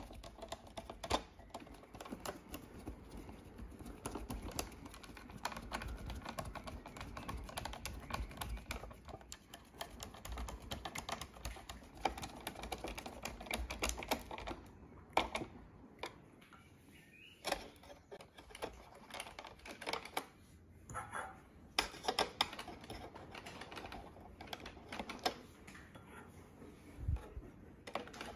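Phillips screwdriver turning screws into the plastic chassis of a Roborock robot vacuum, heard as a run of light, irregular clicks and scrapes with a few sharper taps.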